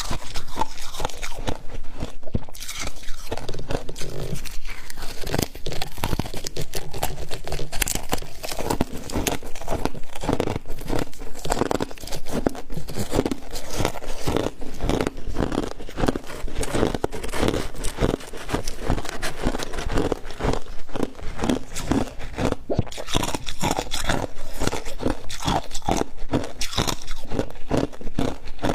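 Close-up chewing and crunching of mouthfuls of freezer frost, a fast, continuous run of crisp crunches.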